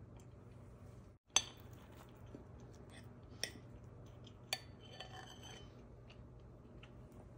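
Metal fork clinking against a glazed ceramic bowl three times while cutting into an iced cinnamon roll. The first clink is the loudest, and the last rings briefly.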